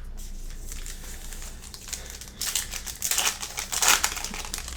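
Crinkling and tearing of a trading-card pack wrapper as the pack is opened, in crackly bursts from about two and a half seconds in, loudest near the end.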